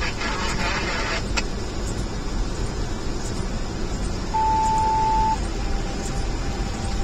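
Road noise inside a moving car on a rain-soaked road: a steady low rumble with tyre hiss and rain on the windshield, louder in the first second. About four seconds in, a steady electronic beep sounds for about a second, then a fainter tone lingers.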